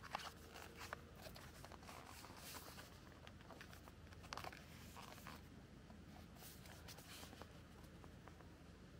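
Faint rustling with a few soft clicks against near-silent room tone.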